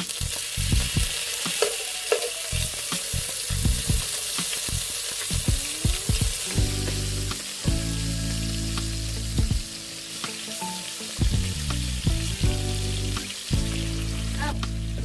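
Food sizzling as it fries in hot oil in a pan, with scattered clicks and scrapes of a utensil against the pan. Background music comes in about halfway.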